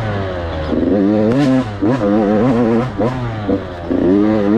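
KTM motocross bike engine under race throttle: the revs fall off at first, then climb and drop again and again as the throttle is rolled on and off.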